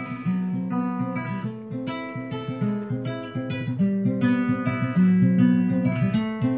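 Acoustic guitar instrumental, notes picked one after another over a bass line, played back through speakers driven by a home-built stereo LM1875 chip amplifier as a listening test.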